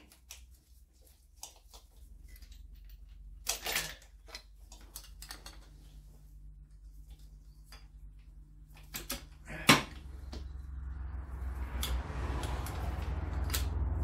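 Ratchet and socket on intake manifold bolts: scattered metallic clicks and taps, with one loud sharp click just before ten seconds in. From about two-thirds of the way through, a steady low rumble builds up.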